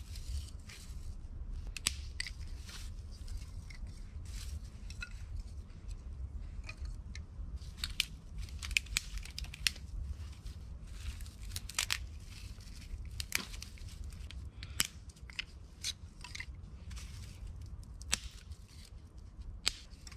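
Dry grass and small twigs rustling, crackling and snapping as they are gathered by hand from the ground and pushed into a cinder-block stove, in irregular sharp crackles over a low steady rumble.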